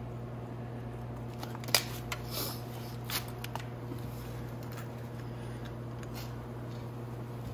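A few light clicks and rattles of small metal parts being handled while carburetor parts are worked on, the sharpest about two seconds in, over a steady low hum.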